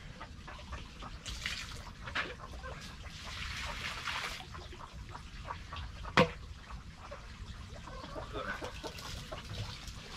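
Hens clucking and pecking at feed, with small ticks and rustling throughout. A single sharp knock about six seconds in is the loudest sound.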